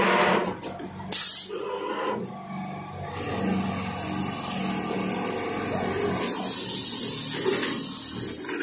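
Compressed-air hiss from the pneumatics of an STN8000A automatic pocket-setting sewing machine: a short blast about a second in and a longer one of about two seconds from around six seconds in, over a steady machine hum.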